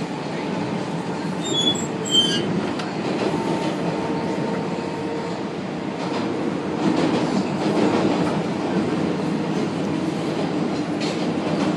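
A New York City 6 subway train running through a tunnel, heard from inside the front car: a steady rumble of wheels and running gear, with two brief high wheel squeals about one and a half and two seconds in and a faint steady whine for a few seconds in the middle.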